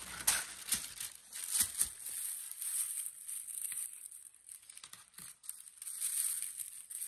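Tissue paper rustling and crinkling as hands spread it out and tuck it into a cardboard box, with the sharpest crackles in the first two seconds and softer rustling after.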